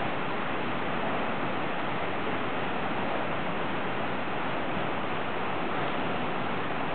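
A steady, even rushing noise with no distinct hoofbeats or other separate sounds standing out.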